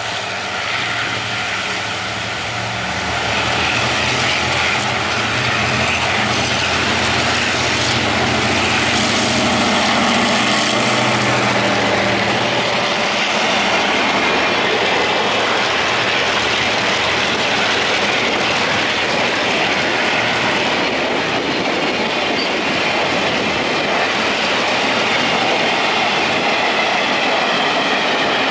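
EMD G22-CU diesel-electric locomotive passing close with its diesel engine running. About twelve seconds in the engine sound gives way to a long string of freight wagons rolling by, wheels rumbling and clacking over the rails.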